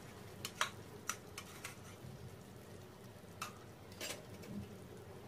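Cornflour-thickened gravy bubbling at the boil in a pan, with scattered sharp light pops and clicks: several in the first two seconds and two more near the end.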